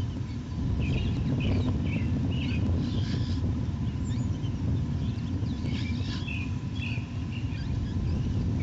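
Wind rumbling steadily on the nest-cam microphone, with two bouts of high, short chirps, about a second in and again about six seconds in, from bald eagle nestlings begging while being fed.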